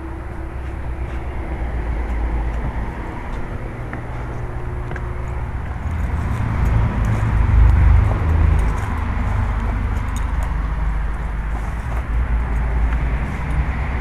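A low, uneven outdoor rumble that swells in the middle, with faint rustling and scraping as someone walks through tall weeds.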